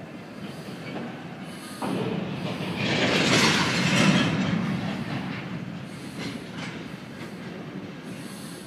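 Freight cars rolling past with the rumble and clatter of wheels on rail. The noise steps up suddenly about two seconds in, is loudest around three to four seconds, then eases off.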